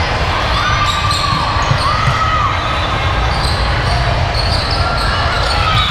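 Gym court sounds: sneakers squeaking on the floor several times and a ball thudding, over a steady hum of crowd chatter.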